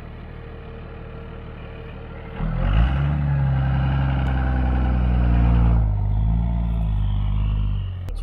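Second-generation Dodge Ram's 5.9 Cummins inline-six turbo diesel idling, then revving up hard about two and a half seconds in as the truck pulls away, and easing back off near the end. The engine is running again after the truck sat parked for years.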